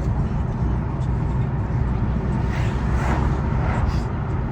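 2014 Fiat 500L on the move, heard inside the cabin: a steady low engine and road drone, with a hissy swell of noise between about two and a half and four seconds in.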